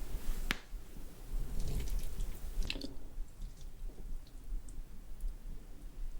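Close-miked wet chewing with sticky mouth clicks. There is a sharp click about half a second in and a cluster of clicks near three seconds, then only faint ticks.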